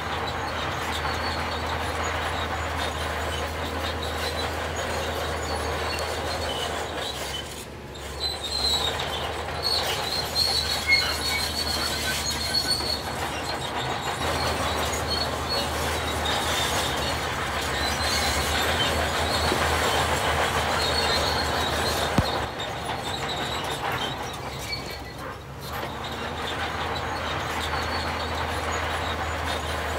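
Heavy machinery running steadily, with a low engine hum and high-pitched metallic squeaks that come and go, most between about 8 and 13 seconds in and again around 20 seconds.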